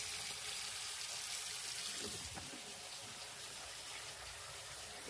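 Water running steadily from a sink faucet, as the newly reconnected sink plumbing is tested for leaks.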